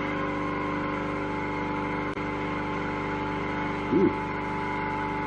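Steady machine hum with several tones held at an even level throughout, and one short chirp-like sound that rises and falls in pitch about four seconds in.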